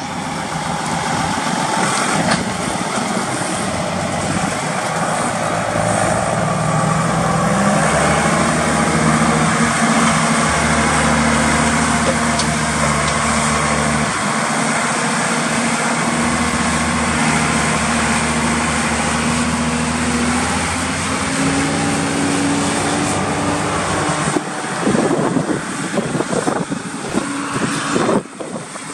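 John Deere 7220 tractor's six-cylinder diesel engine running steadily as the tractor drives about; the engine speed rises about eight seconds in and again near the end, with uneven bursts of noise over the last few seconds.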